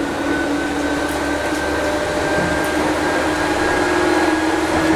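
Tokyu 8500 series train's traction motors running under the car, heard from the seat directly above the motor bogie. It is a loud, steady whine that slowly rises in pitch as the train picks up speed, over rumbling running noise. Motor sound leaking in through the open gangway comes straight into the cabin.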